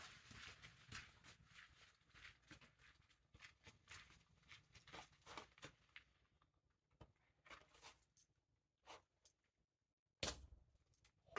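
Near silence with faint scattered clicks and rustles of handling and movement, then one sharper knock about ten seconds in.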